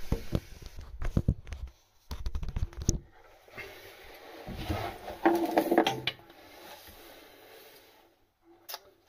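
Plumbing fittings and pipe parts handled close to the microphone: a quick run of clicks and light knocks in the first three seconds, then softer rustling and scraping about five to six seconds in.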